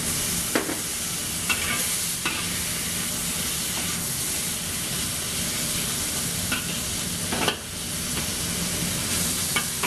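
Vegetables sizzling in a hot wok just after a splash of cooking wine, while a metal spatula stirs and tosses them and clinks against the wok about six times. A steady low hum runs underneath.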